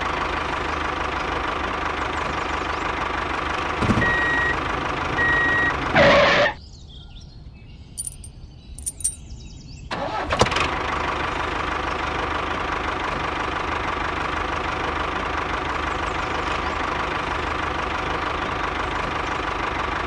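Tractor engine running steadily at idle, with two short high beeps about four seconds in. The engine drops away for a few seconds between two whooshes, then runs on unchanged.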